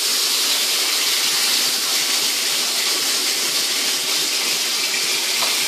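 Chicken pieces sizzling steadily in hot canola oil in a frying pan.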